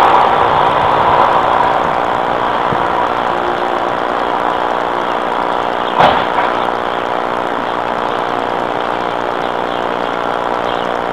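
Vehicle engine idling steadily, with a single sharp knock about six seconds in.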